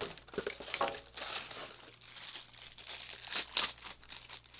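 Plastic packaging crinkling and rustling as it is handled and opened, with a few louder crackles.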